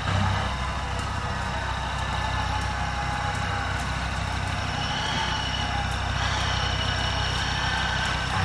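Land Rover Discovery TD5's five-cylinder turbodiesel engine running at low revs as the truck crawls slowly down a steep slope, a steady low drone with a faint whine over it.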